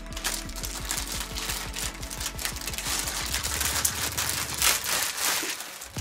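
Clear plastic bag crinkling and rustling as a coiled power cable is pulled out of it, over background music.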